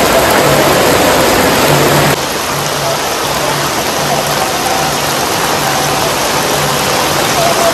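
Heavy rain pouring down on paving and shed roofs, a dense steady hiss. It drops a little in level about two seconds in.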